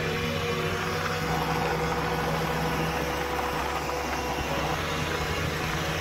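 Small scooter engine running steadily under way, with a constant low drone and wind and road noise.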